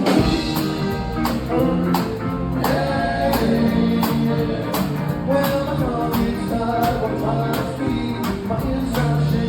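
A live 50s-and-60s cover band playing an upbeat song with a steady drum beat and singing.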